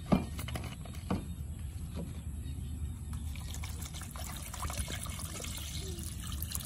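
Water poured from a plastic bottle into an aluminium cooking pot over vegetables and herbs, splashing steadily. There is a short knock at the start.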